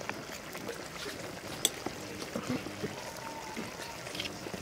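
Thick pea-and-paneer curry gravy being spooned into a steel bowl, with a few light clicks of the spoon against the bowl.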